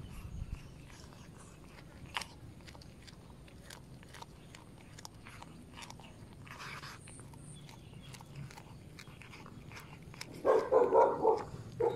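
Domestic cat chewing on a small snake: a steady run of faint crunching clicks from its bites. About ten seconds in, a brief, louder pulsing animal call, the loudest sound here.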